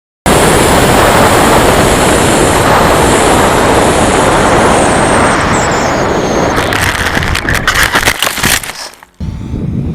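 Radio-controlled model jet flying with a loud rushing noise and a faint high whine that falls in pitch, followed by a run of sharp crackles and knocks before the sound cuts off suddenly.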